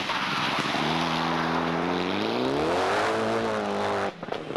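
Rally car engine running hard at high revs over a loud rush of noise, its pitch climbing about two and a half seconds in; the sound cuts off abruptly near the end.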